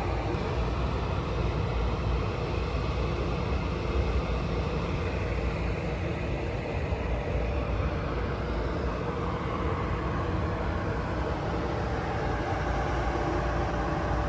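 Steady vehicle rumble and hiss with a faint held tone, no single event standing out.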